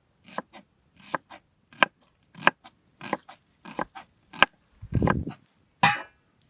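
Knife chopping food on a cutting board: a dozen or so sharp chops at about two a second, with one heavier, duller thud about five seconds in.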